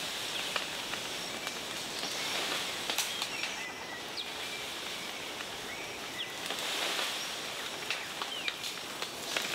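Tropical rainforest ambience: a steady high hiss with short bird chirps scattered through it and a couple of sharp clicks, one about three seconds in and one near the end.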